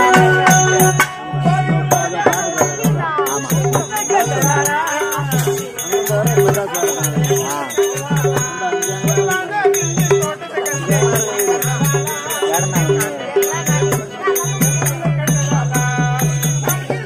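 Live band music for a stage dance: a hand drum beats a steady rhythm under a harmonium and a wavering melody, with a bright jingling rattle keeping time.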